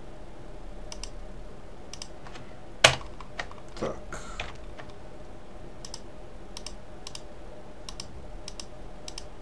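Scattered clicks of a computer mouse and keyboard, irregular and spaced out, with one sharper click about three seconds in.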